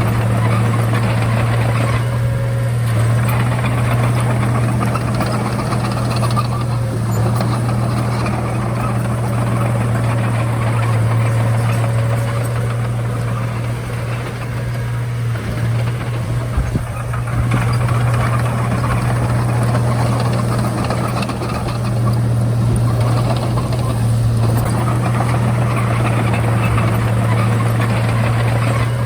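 Komatsu D31A bulldozer's diesel engine running steadily with a deep hum, easing off briefly a few times, with one sharp knock about two-thirds of the way through.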